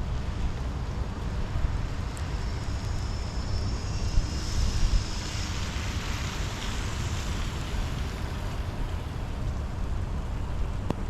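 Steady rain falling, a continuous hiss with a constant low rumble beneath it.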